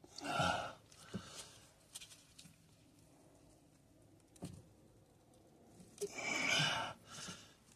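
A man sighs twice: once briefly about half a second in, and again, longer, at about six seconds. A few faint clicks and knocks from handling parts come in between.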